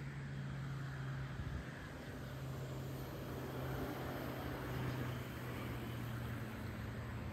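An engine running steadily: a low hum with a rushing noise over it that swells slightly around the middle.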